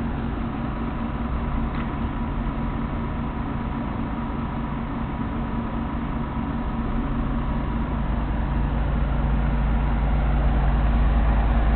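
Fire engine's engine running steadily, a low even hum that grows louder over the last few seconds.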